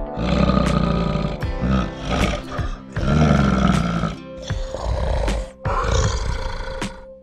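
Background music over loud, low calls of a large animal, the strongest in the first second and about three seconds in.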